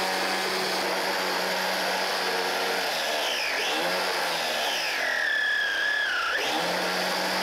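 3D-printed centrifugal water pump driven by a four-motor electric gearbox, running with a steady motor whine over a continuous rush of pumped water. About three seconds in the steady whine breaks up and wavers in pitch, then settles again near the end.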